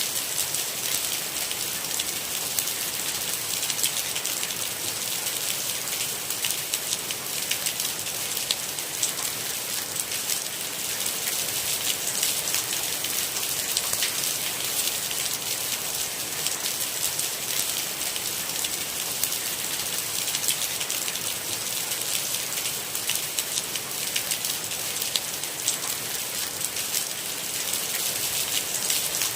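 Steady rain: a dense, even hiss of countless small drops pattering on a hard surface.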